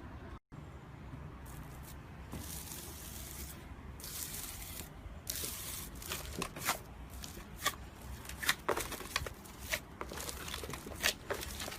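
Close-miked slime being squished and pulled, a soft hissing tear at first, then a quick run of sharp crackles and pops in the second half.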